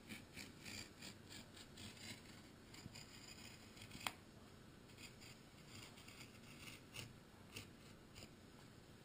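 Hobby knife blade drawn along a steel ruler, slicing a strip of laminating cloth on a wooden board: faint, quick scraping strokes, with one sharp click about four seconds in.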